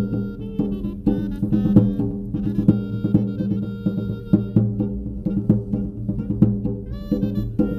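A tambora y clarinete band playing: clarinets carry a melody of held notes over the booming strokes of the tambora, a double-headed bass drum, struck in a steady dance rhythm.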